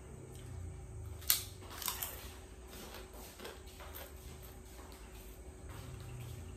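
Small clicks and taps of plates and tableware being handled during a meal, with one sharp click about a second in and two smaller ones just after. A faint steady hum runs underneath.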